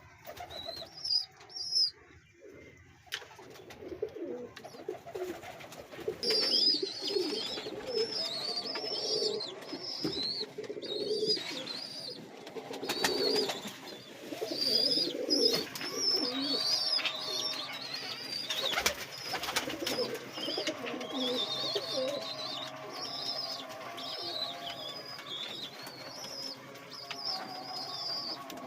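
Pigeon squabs peeping in rapid, high-pitched squeaks, the begging calls of chicks being fed by a parent, over low cooing from the adult pigeons. A few soft knocks come in between.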